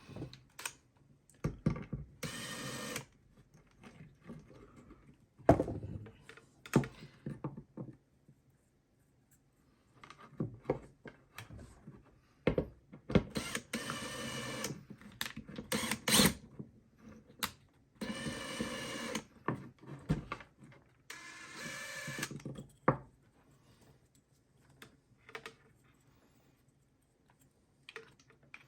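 Screwdriver work on small terminal screws and handling of small parts: irregular clicks and taps, with several scraping stretches of a second or two.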